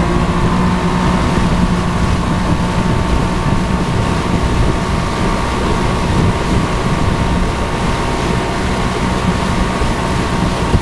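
Jon boat's outboard motor running steadily under way, with water churning in the wake and some wind noise.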